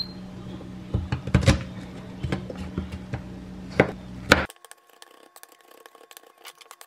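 Kitchen knife chopping garlic on a wooden cutting board: separate sharp knocks of the blade on the wood, then from about four and a half seconds in a quicker, quieter run of light taps as the blade is rocked through the mince.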